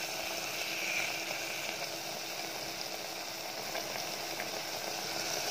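Mutton pieces with onion and tomato sizzling and bubbling steadily in their own juices in an open pressure cooker, over a faint steady hum.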